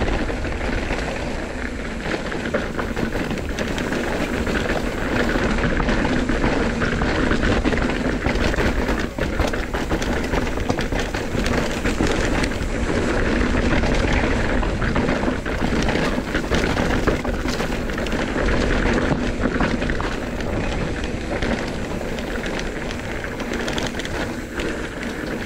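Commencal Meta AM enduro mountain bike running fast down a rough dirt trail: a steady rush of tyre and wind noise with constant irregular rattling and clicking of the bike over the rough ground.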